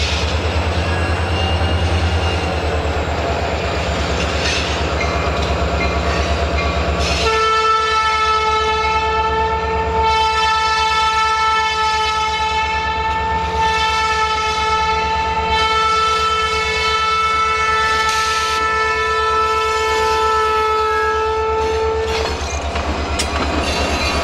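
EMD SD40 diesel locomotive approaching a grade crossing, its 16-cylinder two-stroke diesel running with a steady low throb. About seven seconds in, its air horn starts a long blast lasting about fifteen seconds. Near the end the locomotive passes close by.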